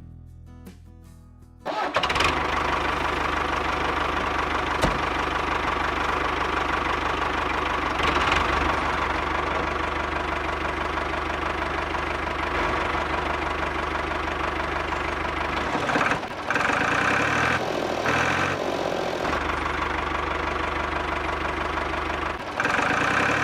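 A small engine starting up about two seconds in, then running steadily with an even low chug.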